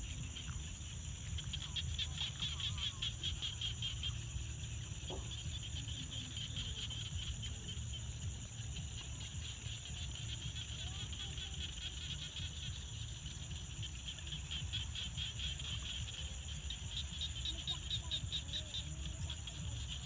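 Chorus of frogs calling in rice paddies: rapid pulsing trills that swell and fade, over a steady high-pitched hum and a low rumble.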